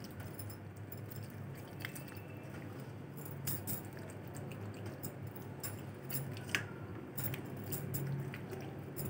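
Hands rubbing salted raw fish pieces in a steel plate: soft wet squishing with a few light clicks, over a low steady hum.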